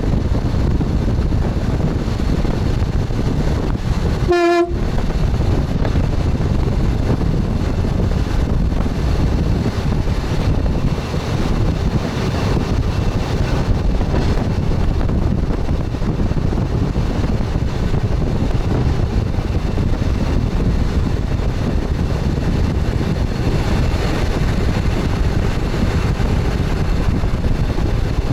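Steady running noise of an express train heard from its front cab, wheels rolling on the rails. About four seconds in, the train's horn gives one short toot.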